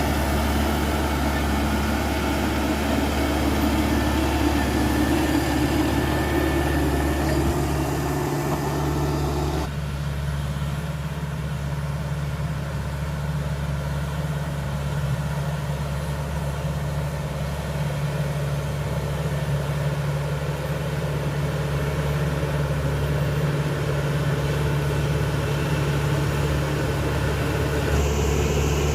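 Caterpillar D5K XL crawler bulldozer's diesel engine running steadily with a deep low drone. About ten seconds in the higher, noisier part of the sound drops away abruptly, leaving mostly the engine's low hum until it comes back near the end.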